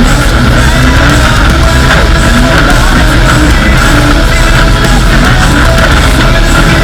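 Loud heavy metal music.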